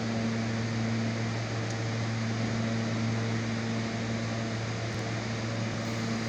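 R160B Siemens subway car standing at the platform, its roof air-conditioning and auxiliary equipment giving a steady low hum over an even hiss.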